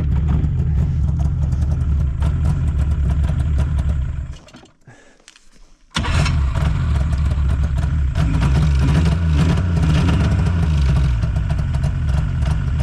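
Just-started snowmobile engine idling cold, with the pitch rising and falling briefly in the second half. The sound drops away for about a second and a half a little before the middle, then returns abruptly.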